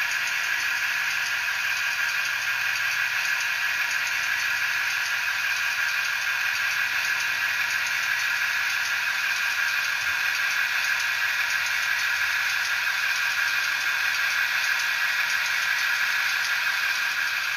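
Model-railway sound decoder in an OO-gauge Class 28 Co-Bo locomotive model, playing the sound of the prototype's Crossley two-stroke diesel engine running steadily. It comes through the model's small speaker, so it sounds thin, with almost no bass.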